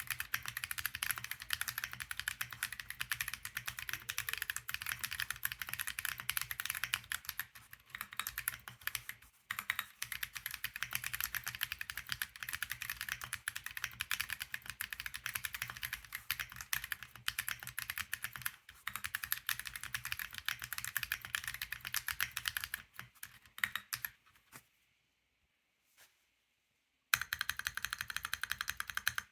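Rapid, continuous typing on a JRIS65 65% mechanical keyboard with stock Tecsee Corsa 60 g medium-tactile switches, a POM plate, lubed TX stabilisers and PBT keycaps, built with minimal foam for the loudest sound. Near the end the keystrokes stop for about two seconds, with a single click in the gap, then resume.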